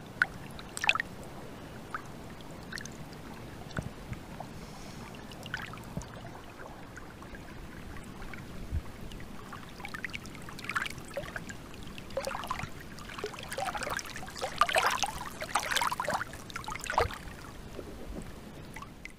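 Small waves lapping and splashing against a pebbly lakeshore, the splashes coming more often in the second half.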